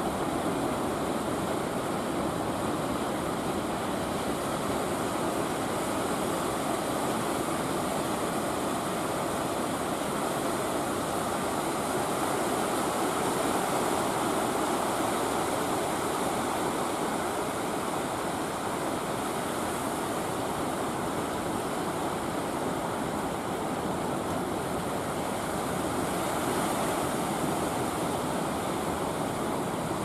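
Heavy surf: large waves breaking in a steady, continuous wash of water noise with no separate crashes standing out.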